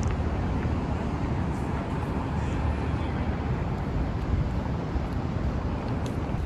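Steady city street noise: distant traffic, with wind rumbling on the phone's microphone.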